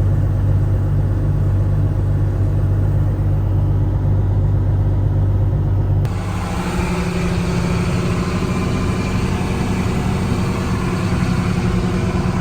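A heavy diesel engine runs steadily at a constant low pitch. About halfway through, the sound cuts abruptly to a different steady engine note, slightly higher and noisier.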